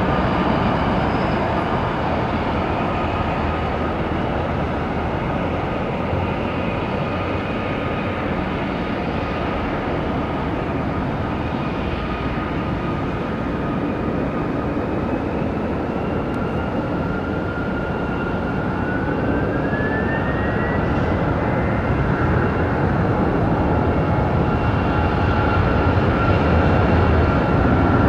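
Jet airliner engines running with a steady roar and a thin whine; the whine rises in pitch about two-thirds of the way through and the sound grows slightly louder toward the end.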